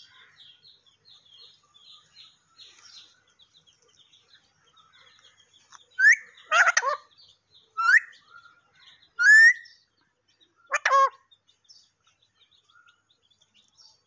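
Alexandrine parakeet calling: five loud groups of short squawks and chattering calls, some rising sharply in pitch, starting about six seconds in. Faint high chirping runs beneath them before the squawks begin.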